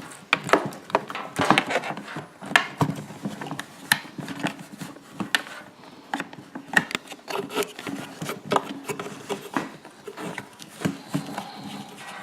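Irregular handling noise: clicks, knocks and rubbing as a wire is pushed through a small hole in a generator's plastic housing.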